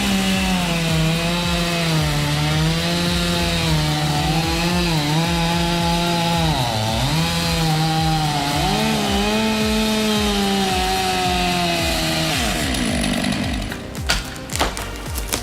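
Chainsaw running at high speed while cutting into wood, its pitch dipping several times as it bogs down in the cut. It stops about three seconds before the end, and a few sharp knocks follow.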